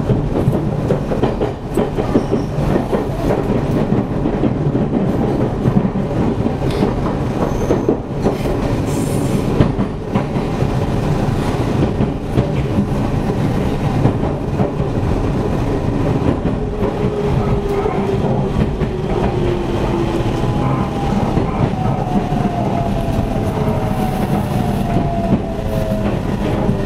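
Running noise inside a JR Central 313 series 8000 subseries electric train, heard at the car end of KuHa 313-8502: a steady rumble with wheels clicking over rail joints. In the second half a faint whine falls slowly in pitch.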